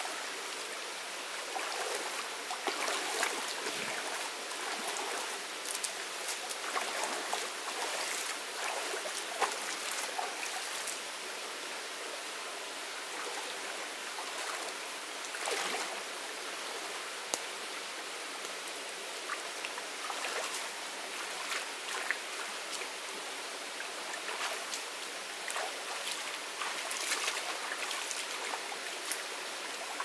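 Shallow stream running steadily, with irregular splashing and sloshing as a person wades through the water and works in it with her hands.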